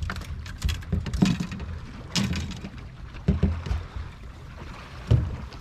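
Lake water lapping against a boat hull, with a low rumble and irregular knocks now and then.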